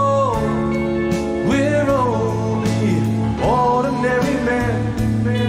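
Rock music: a melody line held and sliding between notes over steady sustained bass and guitar.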